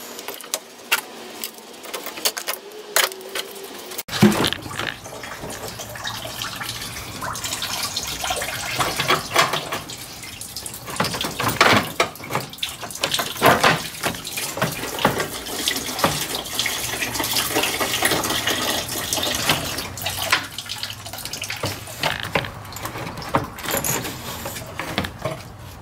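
Hands working the upper radiator hose off the radiator of a 1996 Mustang GT: irregular knocks and clatter of rubber, plastic and metal, over a steady noise that resembles coolant running out.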